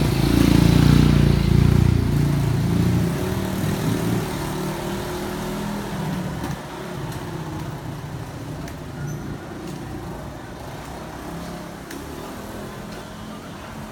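A small motor scooter's engine passing close, loudest in the first three seconds and then fading away. After that, quieter steady background noise of a covered market aisle with a few faint clicks.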